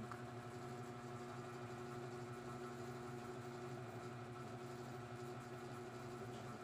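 Steady low machine hum made of several constant tones, with no change in level.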